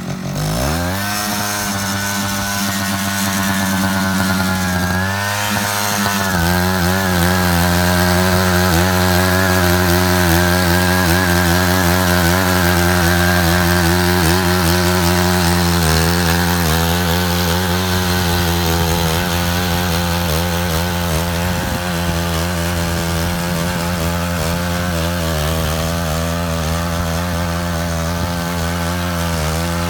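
Engine of a Matsuda walking tractor running under load as it digs a trench. Its pitch rises in the first second, wavers about five to six seconds in, then holds steady.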